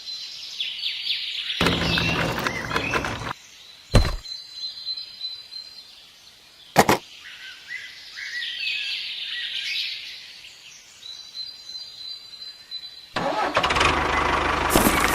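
Birds chirping, broken by two stretches of loud, noisy running, one starting about two seconds in and lasting under two seconds, the other starting near the end. Sharp clicks sound three times.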